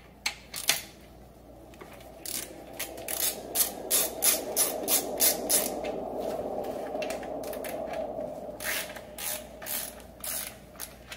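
Socket ratchet clicking in quick runs as an 18 mm socket loosens the rear hub motor's axle nut, with a rough rasp under the clicks through the middle stretch.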